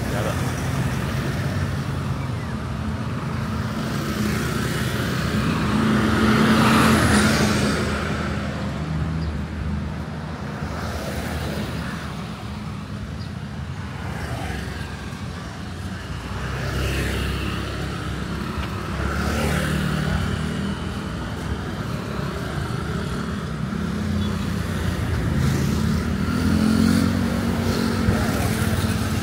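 Street traffic: vehicles passing on a road over a steady rumble, the loudest one going by close about a quarter of the way in and another near the end.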